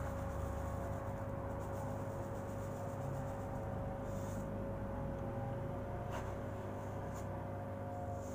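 Liquid trickling in a thin stream from a small cup into another cup, with a brief hissy splash about four seconds in and two light clicks near the end, over a steady low hum with a constant tone.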